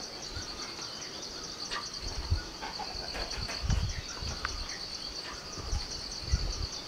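Insects trilling steadily in a high, rapidly pulsing chorus, with a few soft low thumps.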